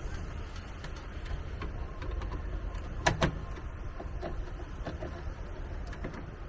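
Hand screwdriver driving screws into the plastic cover of an RV converter/charger panel: small ticks and scrapes, with two sharp plastic clicks about three seconds in, over a steady low rumble.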